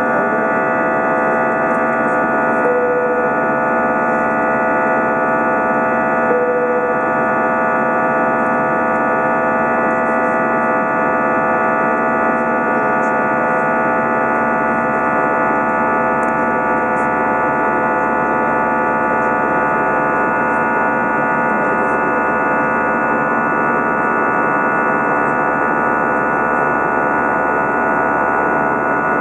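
Steady jet-engine drone heard inside an Airbus A320's cabin during the climb after departure: an even rushing roar overlaid with a hum of several steady whining tones. It does not change throughout.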